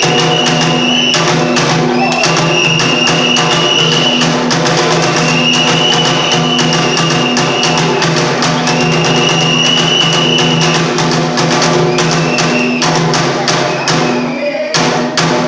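Kagura accompaniment music: fast, steady drum and percussion strikes under a high melody held in phrases of about two seconds each.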